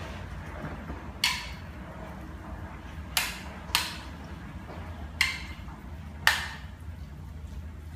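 Sharp knocks of a kitchen utensil against a dish, five of them at irregular intervals, over a low steady hum.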